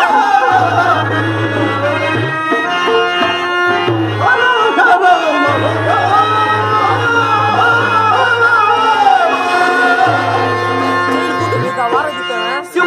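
Live harmonium and tabla accompanying a male performer singing a drawn-out, ornamented verse, the voice wavering and gliding over the harmonium's held notes.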